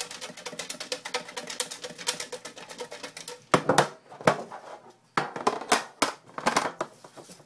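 A tin holding raffle slips being shaken, a fast, even rattle of about nine clicks a second. About three and a half seconds in the shaking stops, followed by several louder knocks and rustles as the tin is handled and opened.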